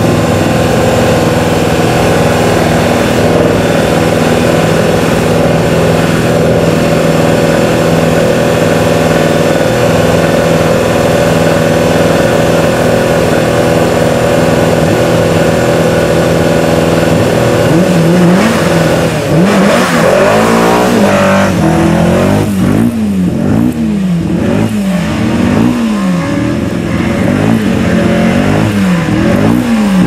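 BMW 320i E21 hillclimb car's M12/7 four-cylinder racing engine running at a steady fast idle. About eighteen seconds in, the engine starts revving up and down over and over, about once every second and a half.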